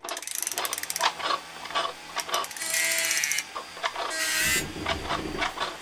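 Mechanical sound effects: a fast run of ratcheting clicks, then scattered clicks and a short whirring passage about halfway through. Another brief whir follows near the end, over a low rumble.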